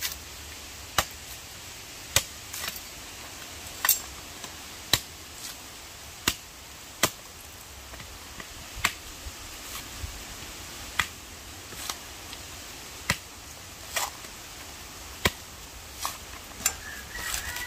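Sharp chopping knocks of a blade striking coconut, about one a second at uneven spacing, as the coconut is broken open and its flesh cut out for grating.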